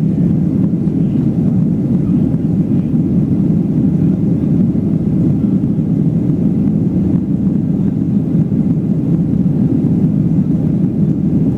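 Steady cabin noise inside a Boeing 737-800 during the climb after takeoff: the drone of its CFM56 turbofans and the rush of air past the fuselage, even and unbroken.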